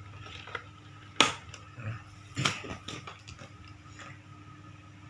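Plastic clicks and taps from a wiring connector being handled at an instrument cluster: a sharp click about a second in, another about two and a half seconds in, and several lighter taps, over a faint steady hum.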